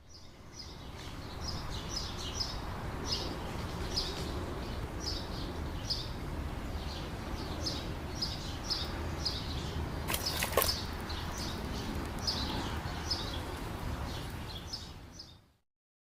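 Rural outdoor ambience: a bird gives repeated short, high chirps over a steady low background noise, with one sharp knock about ten seconds in. The sound fades out near the end.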